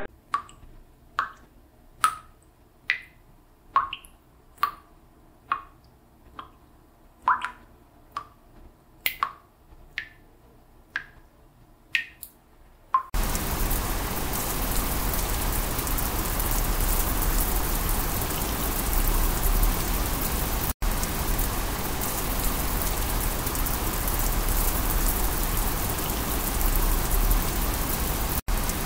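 Water-drip sound effect: single drops plinking about once a second, each a short rising ping. About thirteen seconds in it cuts abruptly to a steady rush of water like heavy rain or a gushing burst pipe, with two momentary dropouts.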